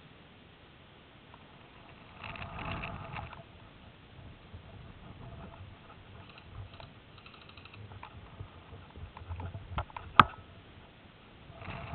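Airsoft electric gun firing short full-auto bursts, a rapid even clicking about a second long, with fainter bursts in between. One sharp, loud snap comes near the end.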